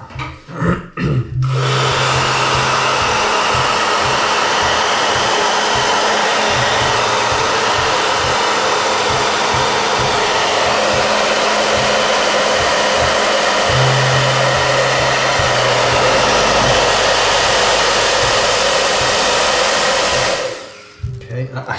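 Hair dryer blowing steadily, spreading a pour of loose black acrylic paint across a board. It comes on about a second and a half in and cuts off shortly before the end.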